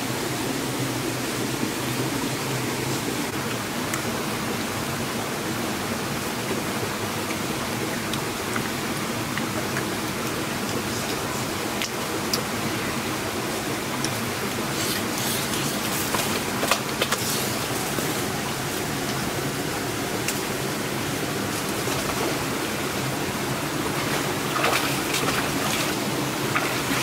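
Steady rushing of a small rocky stream. A few sharp clicks come in the middle, and there is brief splashing near the end as a person steps into the shallow water.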